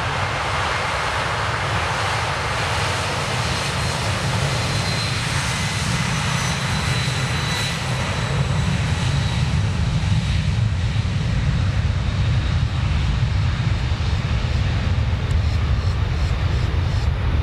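An airliner's engines running loudly as the plane passes, with a steady hiss and a faint high whine. The sound shifts toward a deeper low rumble that grows a little louder about eight seconds in.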